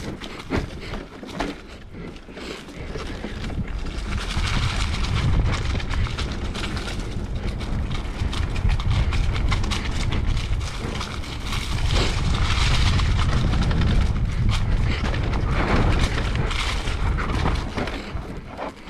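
Wind rushing over the camera microphone, mixed with tyre noise and rattling clicks from an electric mountain bike descending a dirt trail; it grows louder from about four seconds in.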